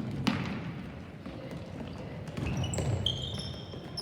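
A ball thudding on a hard indoor court floor during play, with a cluster of short high-pitched squeaks in the second half.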